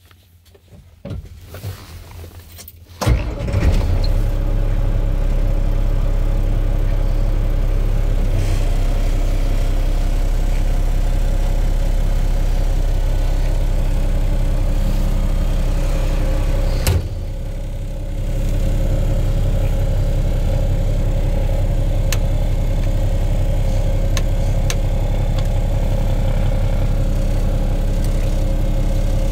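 1991 International truck's engine catching about three seconds in after a few seconds of starting noise, then idling steadily. A sharp click comes about seventeen seconds in, and the engine sound dips for about a second.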